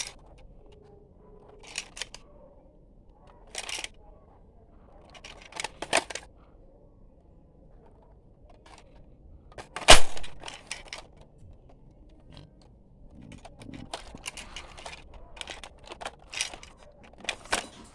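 Plastic clicks and rattles of an X-Shot Max Attack foam dart blaster being handled and reloaded, in short scattered bursts. A single sharp snap about ten seconds in is the loudest sound, and a longer stretch of rattling clicks comes near the end.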